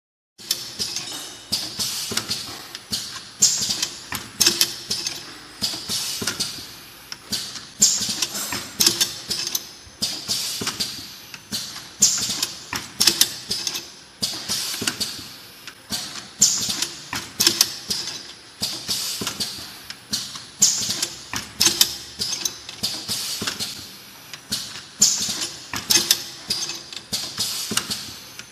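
Automatic screw-capping machine running, its bottles, caps and capping heads clattering in a steady stream of clicks and knocks, with a louder cluster about every four seconds.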